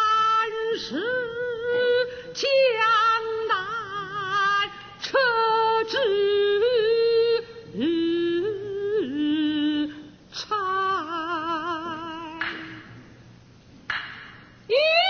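Kunqu opera singing by a single high voice, holding long notes with wide vibrato in short phrases. Near the end the voice sweeps down in a long falling glide.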